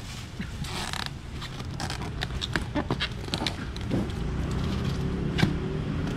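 Styrofoam cooler lid being pressed down and worked onto its box, giving a run of short creaks and squeaks, over a steady low hum.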